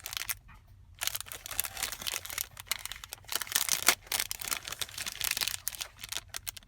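Clear plastic packaging crinkling and crackling as it is handled. It sets in about a second in after a short pause, as a dense, irregular run of crackles.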